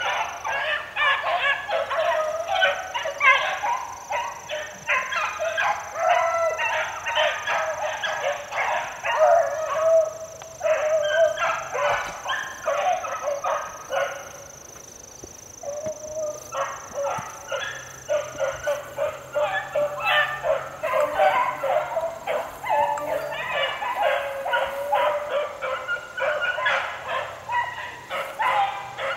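A pack of young beagles baying as they run a rabbit's track, many voices overlapping, with a short lull about halfway through.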